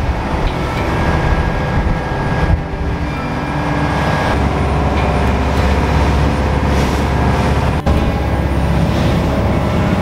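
Boat's engine running steadily as the vessel cruises at sea, with the rush of water and wind past the hull.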